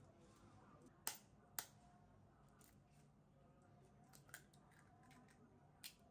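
Eggs being cracked into a glazed ceramic bowl: two sharp taps of eggshell about a second in, half a second apart, then two fainter shell clicks later on.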